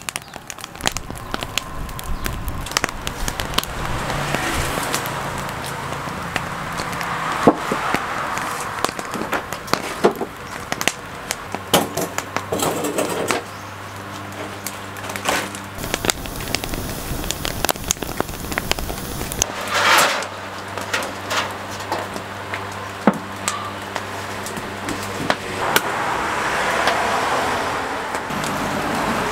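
Coconuts crackling as their shells are burned, with many sharp clicks and knocks scattered through, over a steady low hum that comes and goes.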